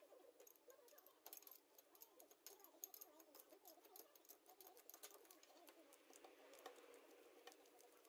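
Near silence, broken by many faint, scattered small clicks: screws and a hand key clicking against the steel collet chuck body as it is fitted to the lathe spindle.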